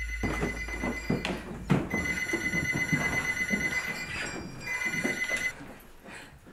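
Corded landline telephone ringing with a steady electronic tone in repeated rings, the last ring cut short about five and a half seconds in. Thumps and knocks of hurried movement sound under the ringing.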